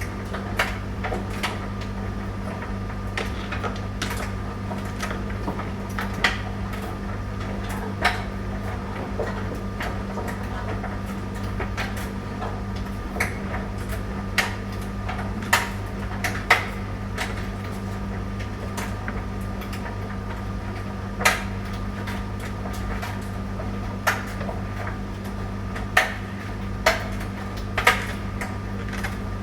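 Tumble dryer running with a steady low hum, and irregular sharp clicks and knocks from the load tumbling in the drum, every second or few.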